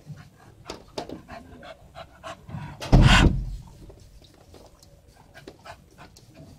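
Dog panting close by, a quick run of short breaths, with a loud rustling thump about three seconds in.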